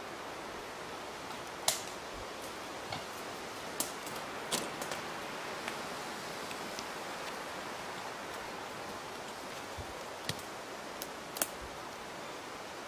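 Quiet woodland ambience: a steady hiss broken by a handful of short, sharp clicks and snaps scattered through, the loudest about two seconds in.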